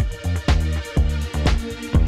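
Background music with a steady beat about twice a second over a bass line.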